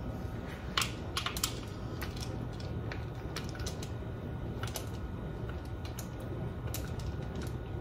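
Scattered light metal clicks and taps as the wing-nut clamps of an All-American pressure canner are swung into place and lightly turned down, opposite pairs in turn, over a steady low hum.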